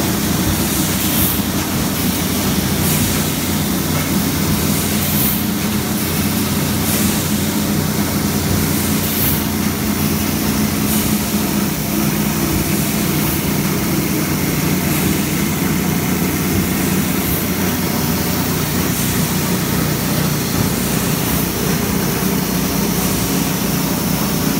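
Steady drone of a plastics thermoforming and trimming line, machine hum with a short hiss repeating about every two seconds.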